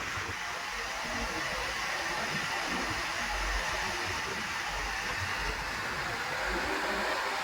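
Backhoe loader's diesel engine running steadily: a dense, even machine noise with a faint steady whine and irregular low rumbles.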